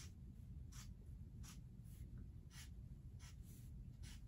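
Felt-tip Sharpie marker scratching across paper in short strokes, about six of them, roughly one every 0.7 seconds, drawing the veins of a leaf. Faint, over a low room hum.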